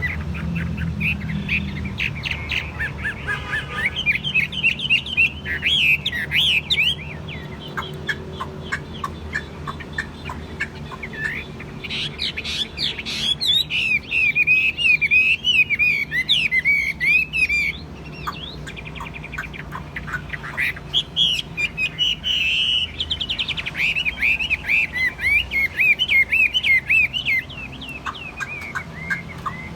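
Chinese hwamei singing loud, rapid, varied warbling phrases in three long bouts with short pauses between them.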